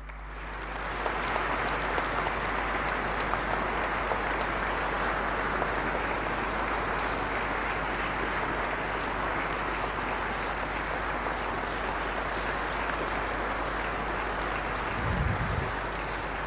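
A large seated audience applauding steadily, swelling up within the first second and holding at an even level. A low steady hum runs underneath, and there is a brief low bump near the end.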